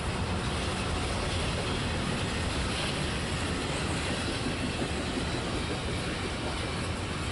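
Double-stack intermodal container train's well cars rolling past, a steady low rumble of steel wheels on the rails.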